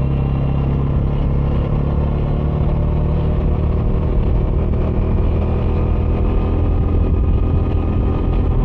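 Bajaj Dominar 400 UG2's single-cylinder engine running through its stock dual exhaust while riding, a steady loud engine note with a deep rumble.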